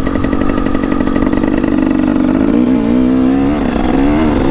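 Two-stroke KTM 300 EXC dirt bike engine running under way at steady revs, then rising and falling in pitch several times as the throttle opens and closes.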